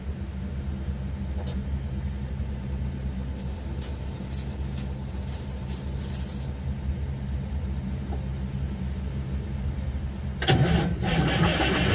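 Detroit Diesel Series 60 12.7-litre engine cranking over hard on a cold start, with a burst of hissing for about three seconds a few seconds in. Near the end it fires and catches, and it becomes suddenly louder as it starts running.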